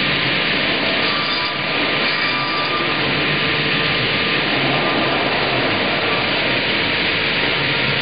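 Automated double-bladed circular sawmill running, its two saw blades spinning and cutting a log as it is carried past: a steady, unbroken whirring noise.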